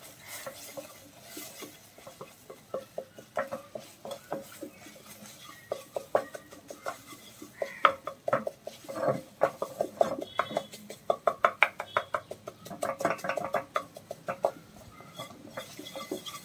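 A spatula scraping and knocking against a nonstick pan as scrambled eggs are chopped into small crumbles. The knocks are quick and irregular, busiest in the second half.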